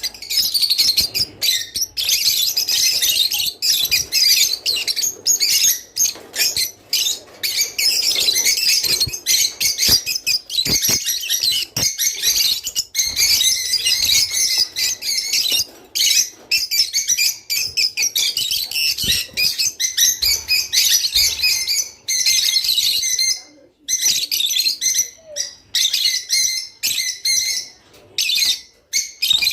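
A flock of rosy-faced lovebirds chirping and chattering densely and almost without a break, with rapid high-pitched twitters and only brief pauses.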